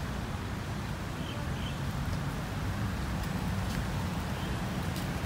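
Steady low rumble of road traffic, with two faint high chirps about a second and a half in.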